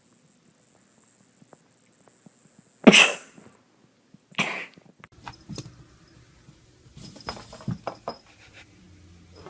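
Two loud sneezes about a second and a half apart, followed by a run of quieter short noises.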